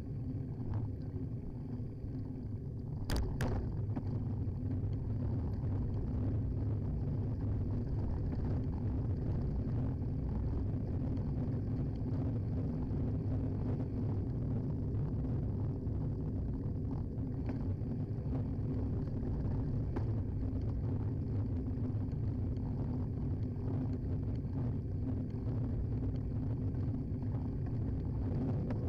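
Steady low rumble of a Carrera CX bike riding on the road: tyre noise, frame vibration and wind picked up by a handlebar-mounted action camera. A sharp click comes about three seconds in, and fainter ones follow later.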